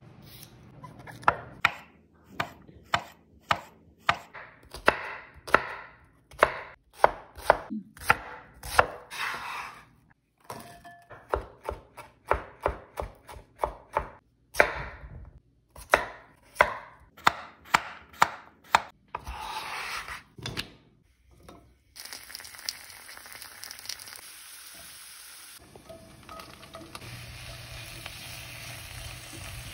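A knife chopping on a wooden cutting board in many sharp, uneven strokes. About two-thirds of the way through this gives way to a steady sizzle of sliced mushrooms frying in a cast-iron skillet as a spatula stirs them.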